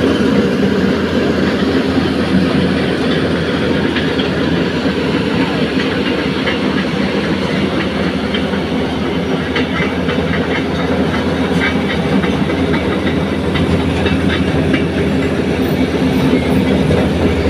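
Diesel engine of a Tata Hitachi Zaxis 220 crawler excavator running steadily as the machine tracks along, with a light clatter of its steel track links.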